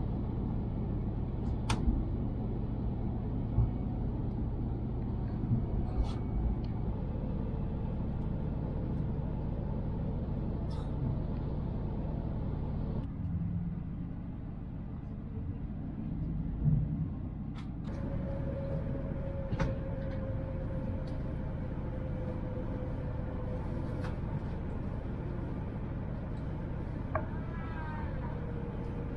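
Steady running rumble inside the cabin of a Tohoku Shinkansen bullet train, with a few sharp knocks. In the second half, a faint whine slowly falls in pitch as the train slows toward the platform.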